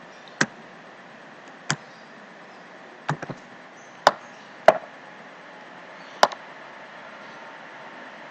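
A few sharp, irregularly spaced clicks of computer keys and a mouse button as numbers are typed into a spreadsheet and a cell is dragged, over a low steady hiss.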